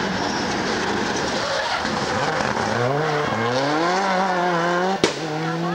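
Rally car driven hard at speed, engine noise and tyre noise at first, then the engine revving up with one gearchange about three seconds in and pulling on at high revs. A sharp click about five seconds in.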